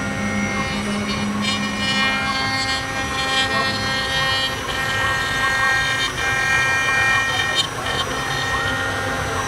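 R-1325 CNC router's spindle running as its small bit carves a rotating wooden cylinder held in the rotary-axis chuck: a steady whine of several high tones over a rushing noise. The tones grow stronger about one and a half seconds in and drop back near the end.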